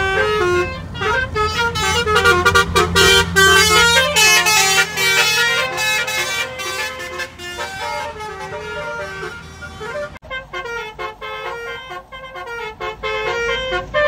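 Basuri (telolet) multi-tone car horns playing a tune, the notes stepping quickly one after another, over steady engine and road hum. About ten seconds in there is a sharp click and the hum drops away while the horn tune goes on.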